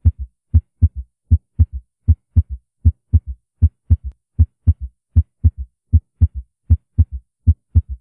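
Auscultated heart sounds with an S3 gallop: each beat a strong first heart sound, a second heart sound, then a fainter low-pitched third sound just after it, in a triple rhythm of about 78 beats a minute. The third sound, a ventricular gallop, comes from blood rapidly filling a compliant, dilated ventricle in early diastole.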